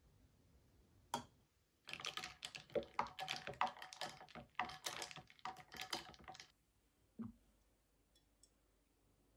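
A quick, irregular run of light, sharp clicks lasting about four and a half seconds, like typing on a keyboard. A single click comes before the run and a dull knock after it.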